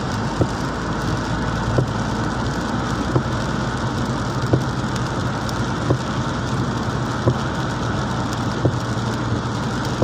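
Inside a car driving on a rain-soaked road: a steady engine and road noise with rain and wet-tyre hiss. A short knock repeats about every one and a half seconds, in time with the windscreen wipers sweeping.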